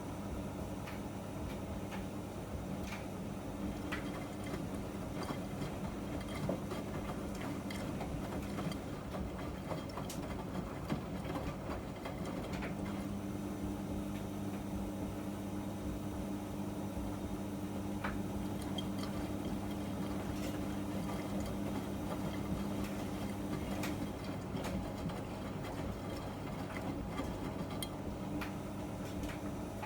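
Miele MedicWash W2585 front-loading washing machine running its wash cycle: a steady motor hum that drops away for a few seconds about a third of the way in and again near the end, as the drum pauses between turns, with scattered light clicks and knocks.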